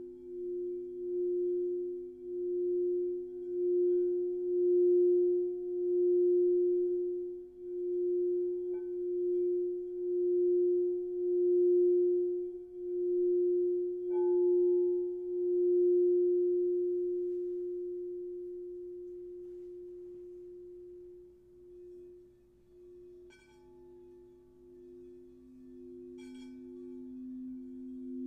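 Crystal singing bowls ringing in steady, pure tones that pulse in loudness about once a second. A few light strikes add brief higher tones. The sound fades down about two-thirds of the way in, then a lower bowl swells back near the end.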